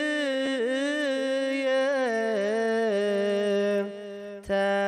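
Eritrean Orthodox Tewahdo liturgical chant: a voice holding long drawn-out notes that slide from pitch to pitch. It softens near the end, then stops briefly and resumes.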